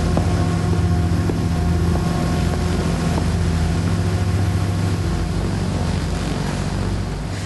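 A steady low engine drone with rushing wind noise, fading away near the end.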